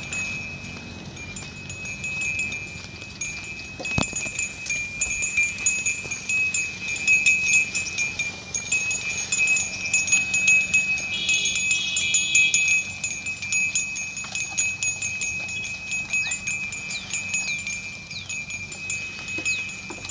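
Many small bells on a herd of Kankrej cattle jingling and clinking as the animals walk, a steady ringing with quick clinks over it, louder through the middle.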